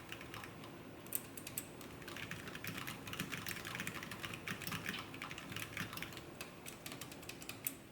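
Typing on a Cougar Vantar AX gaming keyboard: a fast run of key clicks, with a few louder single strikes and the typing getting denser after a couple of seconds.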